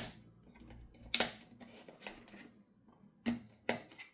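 Sharp plastic clicks and snaps as the clip-held halves of a small IP camera's plastic ball housing are pried apart with tweezers. There are several separate clicks, the first about a second in, then three close together near the end.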